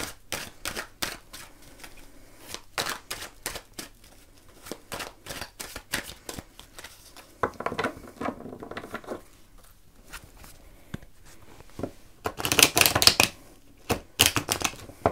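A deck of oracle cards shuffled by hand: a steady run of quick, light card clicks and flicks, with denser, louder bursts of shuffling about halfway through and again near the end.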